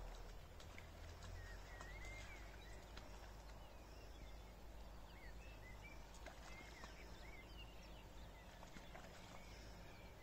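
Faint bird chirps: scattered clusters of short notes that rise and fall in pitch, over a steady low rumble and a few faint clicks.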